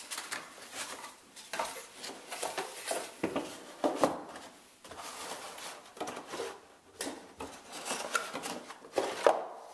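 Cardboard packaging being opened and pulled apart by hand, then a hard plastic grill cover handled on a stone countertop: irregular rustling and scraping with light knocks.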